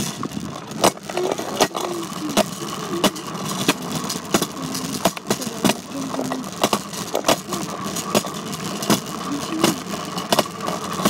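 A bike being ridden, rattling with many irregular sharp knocks and clicks over a steady hum, with a few short squeaks.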